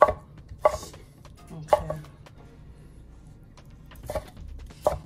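Kitchen utensils knocking against cookware: about five short, sharp clinks, spread unevenly, over a faint low hum.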